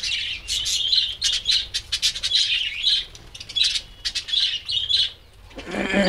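A colony of budgerigars chirping and chattering, a dense run of quick high chirps, with a short lull about five seconds in.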